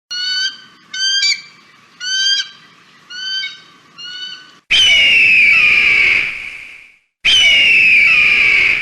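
Eagle calls: a series of five short, high, piping calls about a second apart, then two long, loud, high-pitched screams that each start abruptly after a brief silence.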